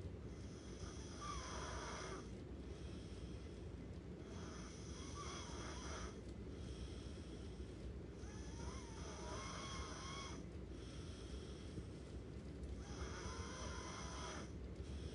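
Steady, slow snoring: four drawn-out snoring breaths about four seconds apart, each with a wavering, whistling edge, over a low steady hum.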